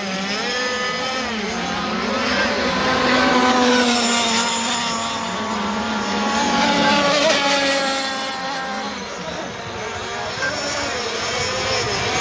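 Several 26–35cc two-stroke petrol RC racing boats running at full speed around the course, their engine notes overlapping and wavering up and down in pitch as the boats pass and turn.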